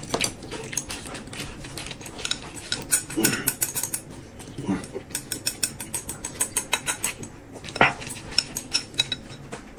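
Wooden chopsticks clicking rapidly against a glass bowl as food is shovelled into the mouth and chewed, with one sharper knock about eight seconds in.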